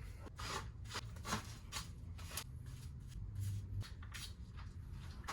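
A quick, irregular series of short rustling, scraping strokes while the surfboard repair work area is being cleaned up.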